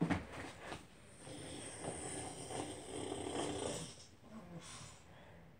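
Boston terrier–pug mix breathing noisily through its short snout, a breathy rasp that lasts a couple of seconds and begins about a second in.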